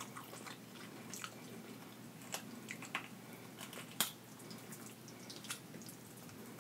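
Wet, sticky handling of sauce-drenched lobster meat being pulled apart by hand, with sauce dripping and a scattered handful of small clicks and squishes.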